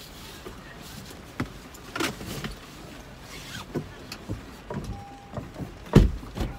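Knocks and rustling inside a car as the driver turns about and pulls her seatbelt across. A short electronic beep comes about five seconds in, and a loud, deep thump about six seconds in.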